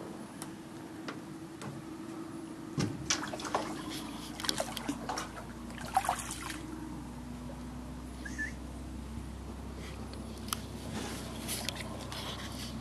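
Water sloshing and small splashes against an aluminium boat hull as an alligator swims alongside, with scattered sharp clicks and knocks. A faint steady low hum runs underneath.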